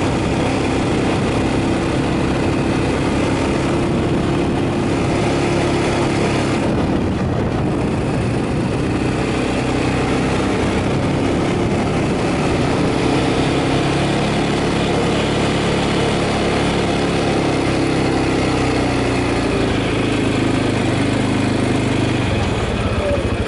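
ATV engine running steadily as the quad is ridden, its pitch rising and falling a little with the throttle.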